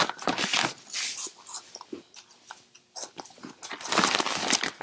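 Crunchy pea-flavoured Cheetos snacks being bitten and chewed close to the microphone, a run of crisp crackling crunches that is busiest near the start and again in the last couple of seconds, with the plastic snack bag rustling as gloved hands reach into it.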